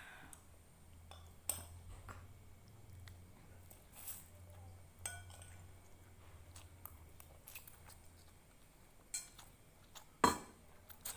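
Cutlery clinking and scraping against a plate of fried noodles and rice, in scattered light clicks with one louder clink near the end.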